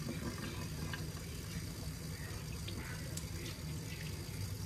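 Kitchen tap running in a steady stream into a stainless steel sink, splashing over hands as they rinse a salmon fillet.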